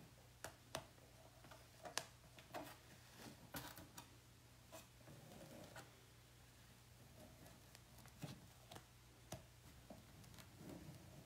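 Near silence with a dozen or so faint, scattered clicks and light taps of hands handling a reusable chalk-paste silkscreen transfer as it is lifted off a chalkboard.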